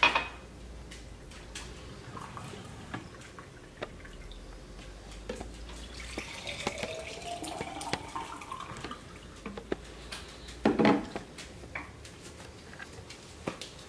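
Vegetable juice poured from a juicer's jug into a glass jar. The pitch of the filling rises over about three seconds as the jar fills. A brief loud bump comes near the end.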